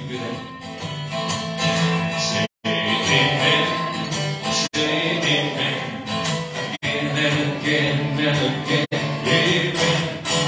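A man singing while strumming an acoustic guitar. The sound cuts out completely for an instant a few times.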